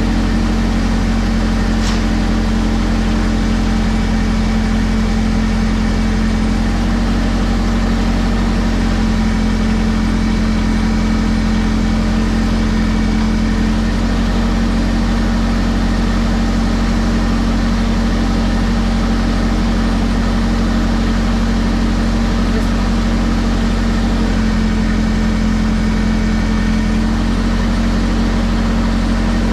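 Tractor engine idling steadily, an even low hum that barely changes.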